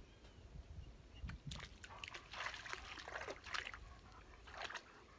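Dog wading into shallow pond water, with irregular splashing and sloshing.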